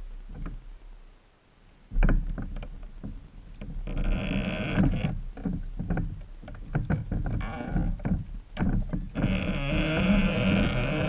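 Human-powered paddle wheel with fiberglass-covered pine blades turning, its blades slapping and churning the water in a run of splashes and knocks that starts about two seconds in.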